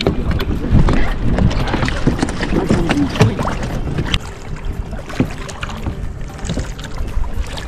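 Kayak paddling on open water: irregular splashes and drips from the paddle strokes, with wind buffeting the microphone.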